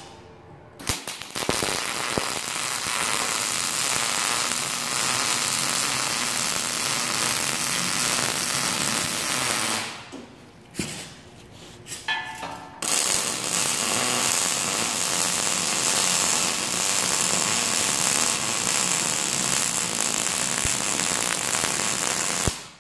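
Wire-feed welder arc crackling steadily as a square steel tube leg is welded to a steel frame. Two long runs of about nine seconds each, with a short break about ten seconds in that holds a couple of brief crackles.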